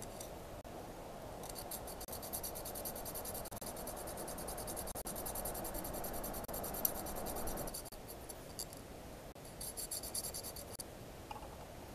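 Rasping scrape of a hand tool worked back and forth on metal, close and evenly ticking. It runs steadily for about six seconds, stops, and comes back briefly near the end.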